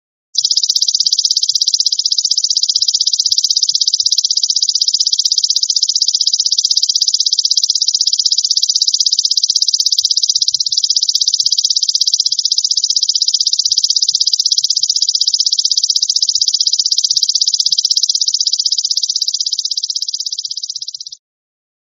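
Belalang emas ('golden grasshopper') insect stridulating: one continuous, rapid, high-pitched buzzing trill that starts just after the beginning and cuts off suddenly near the end.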